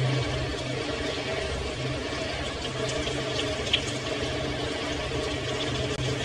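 Pan of chicken and saluyot sinigang boiling as it is stirred with a plastic spatula, with a steady low hum underneath. A single sharp click comes a little past halfway.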